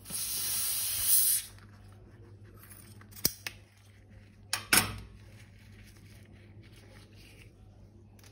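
A loud spraying hiss of escaping pressurised gas, lasting about a second and a half, followed by a few sharp clicks and knocks around the middle.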